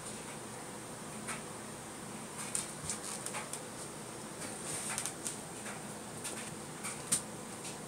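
Scattered light clicks and taps of cats' paws and claws on a tile floor as they pounce at a laser dot, in irregular little flurries with a sharper tap near the end, over a steady hiss.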